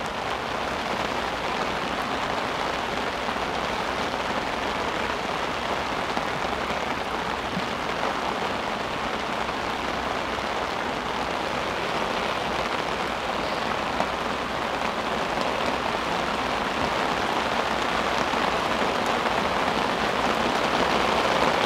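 Heavy rain pouring down steadily, growing gradually louder over the stretch as the downpour gets heavier.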